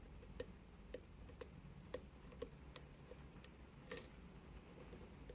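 Faint, sharp clicks about twice a second at a nearly even pace, with a slightly louder click about four seconds in.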